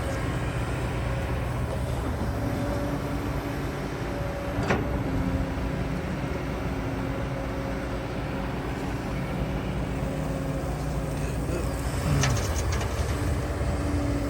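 Diesel excavator engine running steadily under work, with a single sharp knock about five seconds in and a brief metallic clatter and falling whine about twelve seconds in.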